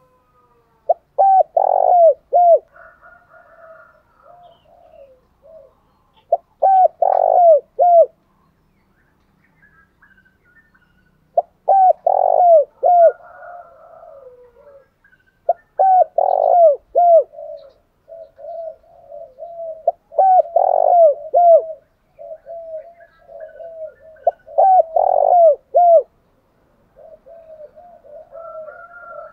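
Spotted doves cooing: loud phrases of four or five short, quick coos repeat every four to five seconds. Softer, murmured coos run between the phrases. This is the cu gáy's calling song together with its low 'gù' cooing.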